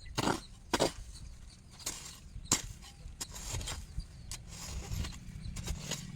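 Irregular sharp knocks, scrapes and rustles, a dozen or so spread unevenly, over a steady low rumble.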